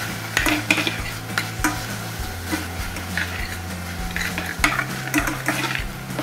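A metal spoon stirring sautéing kale, pine nuts and raisins in a stainless steel saucepan: irregular scrapes and clinks against the pan over a light sizzle, with a steady low hum beneath.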